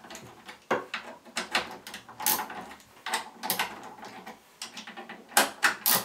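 Irregular sharp metallic clicks and clatters from a ratchet wrench and extension socket working the hex jack screws on a computer's D-sub connectors, the loudest couple of clicks near the end.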